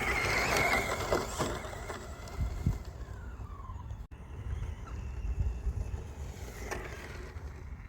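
RC rally car's motor whining, its pitch gliding down as the car slows, then rising and falling again. A couple of low thuds about two and a half seconds in.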